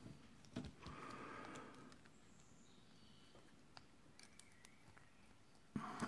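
Faint, scattered small clicks and handling of a 4-pin Master Lock padlock and steel lock picks as the tension wrench and pick are set into the keyway. A louder rustle comes near the end.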